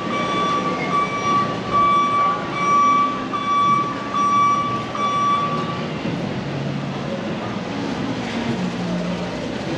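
A high tone holding one steady pitch, broken by short gaps about every second, sounds for about six seconds and then stops, over a constant background of street noise.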